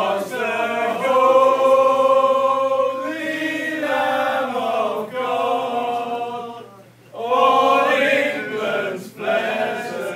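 A group of men singing an old pub song together, with long held notes and a brief break about seven seconds in.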